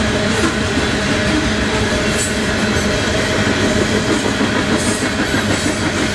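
Freight train of coal hopper cars rolling past at steady speed: continuous, loud noise of wheels on rail and moving cars.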